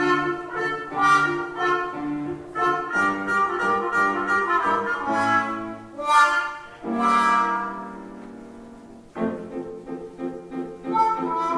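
Trumpet and trombone playing a duet with piano accompaniment. About seven seconds in, a long note fades away, and after a short lull a new phrase of repeated notes starts.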